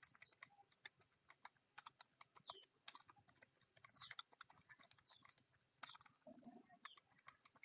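Faint, rapid typing on a computer keyboard: a stream of irregular key clicks during a timed typing speed test.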